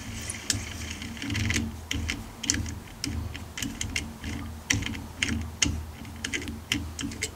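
Hand tap being turned with a tap wrench in a mild steel bar, giving an irregular run of sharp clicks, a few a second, each with a dull knock. The steel taps badly, with swarf gumming up the tap.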